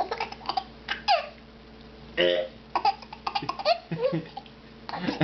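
A baby with the hiccups laughing in short, broken bursts of giggles, busiest a little past the middle.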